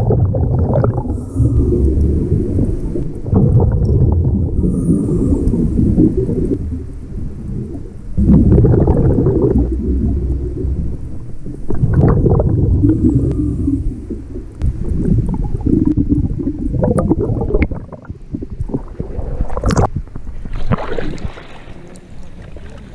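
Underwater camera audio: a diver's exhaled air bubbling and rumbling in bursts a few seconds apart. Near the end, water sloshing and hissing as the camera breaks the surface.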